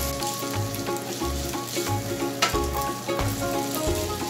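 Noodles, chicken and peppers sizzling in a nonstick frying pan while a spatula stirs them, with a few scrapes. Background music with a steady bass beat plays over it.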